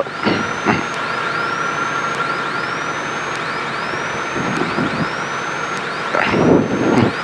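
Piston helicopter at idle during shutdown, engine and rotor running steadily, heard through the cabin intercom with a steady high whine, as the mixture is pulled to cut off the engine.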